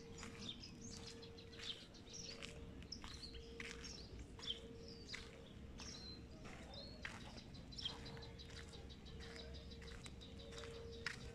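Birds chirping and calling all around, many short high chirps and whistles overlapping, over a faint steady hum that breaks off and comes back several times.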